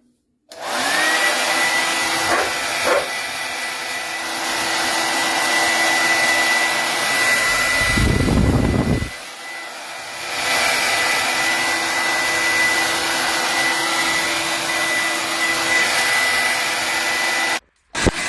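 ANNE BETTY 1800W ionic hair dryer switched on and running. Its motor whines up to a steady high pitch over a loud rush of air. About eight seconds in there is a low rumble for about a second. It switches off near the end.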